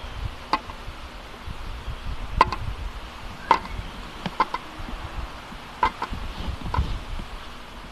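A glass bottle tapping and knocking against a hard plastic face shield: several sharp, irregularly spaced clicks with a short ring.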